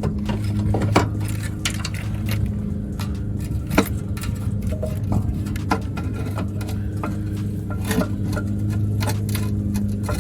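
Scattered metallic clinks and knocks as a new starter motor is offered up to a Ford F150 and its mounting bolts are started by hand, over a steady low hum.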